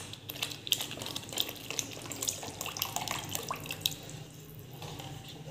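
Wooden spatula stirring curd into a thick gravy in a steel pan: wet squelching and sloshing with small scrapes and clicks against the pan, easing off near the end.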